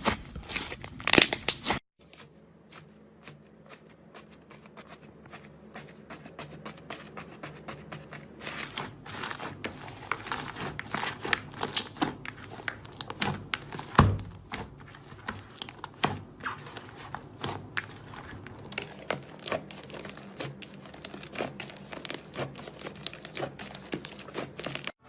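Slime being squeezed and worked by hand close to the microphone, giving dense, irregular crackles and small pops. The crackling is loud for the first two seconds, cuts off abruptly, then returns quieter and grows busier, with one louder pop about halfway through.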